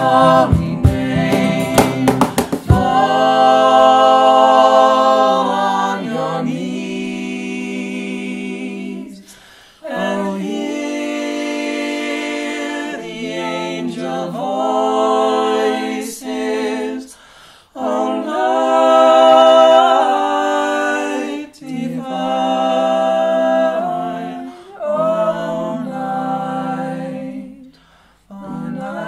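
A small group of mixed voices singing unaccompanied close harmony, in long held chords with short breaks between phrases. A few sharp percussive hits sound in the first three seconds, before the voices carry on alone.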